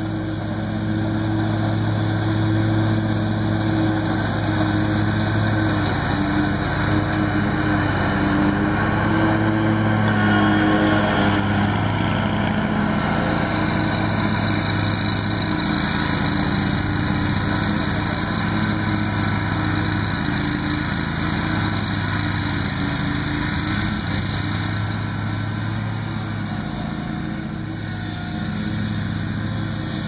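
Husqvarna P-ZT60 zero-turn riding mower running steadily while mowing grass, a continuous engine hum. It grows a little louder toward the middle as the mower comes close, then eases slightly.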